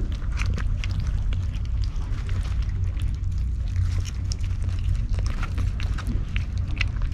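Stray cats eating right at the microphone: irregular wet clicks and ticks of chewing and licking, over a steady low rumble.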